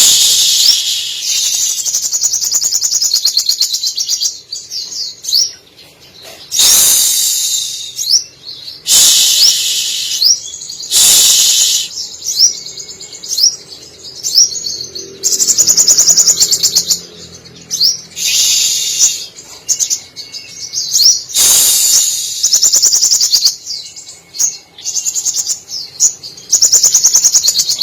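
Little spiderhunter (sogok ontong) singing vigorously: loud, fast, high-pitched trills and chattering phrases in repeated bursts a second or few long with short pauses between, its song filled with phrases imitated from canary, sparrow and lovebird.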